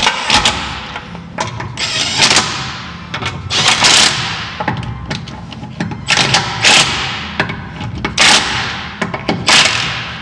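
Cordless brushless power ratchet running in repeated short bursts, each one trailing off, as it tightens the wheel nuts.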